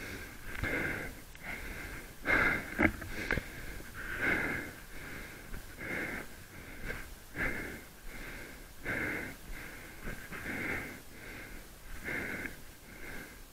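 A person's heavy, wheezy breathing close to the microphone, a breath about every second.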